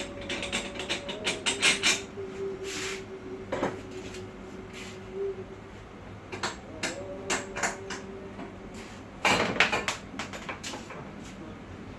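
Metal parts being handled and knocked about on a steel buggy frame: a string of clanks and knocks, with a burst of louder knocks near the end and a faint held ringing tone at times.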